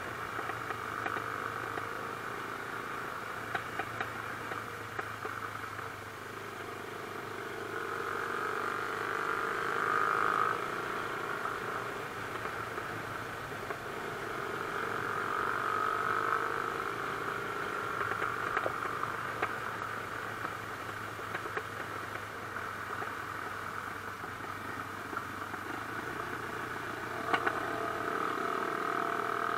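Mash Cafe Racer 250's single-cylinder engine running under way, heard from on board. Its pitch rises and falls several times as the throttle is opened and eased off. There is one sharp click near the end.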